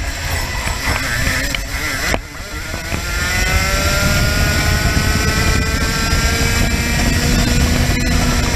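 Racing kart engine running at speed. It dips briefly about two seconds in, then pulls hard with its pitch rising steadily as the kart accelerates down the straight. Wind buffets the onboard microphone underneath.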